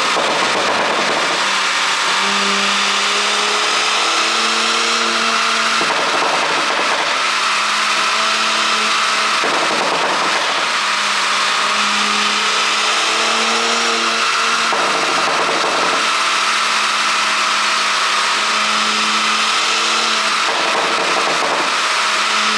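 Porsche Panamera 4's twin-turbo V6 and road noise, a steady drone from a car driving at an even speed, with no exhaust pops or crackles.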